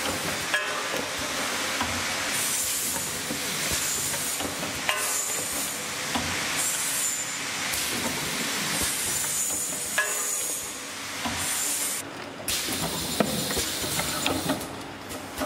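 Automatic rotary honey filling and sealing machine running: bursts of compressed-air hiss from its pneumatic cylinders every couple of seconds, with scattered clicks and knocks from the moving nozzles, sealing head and turntable.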